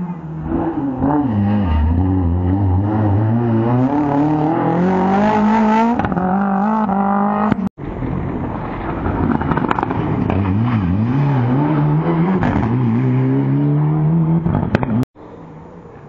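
Rally car engine revving hard through a bend, its pitch climbing as it accelerates, then rising and falling with throttle changes. The sound cuts off abruptly about halfway through, starts again at once, and cuts off again a second before the end.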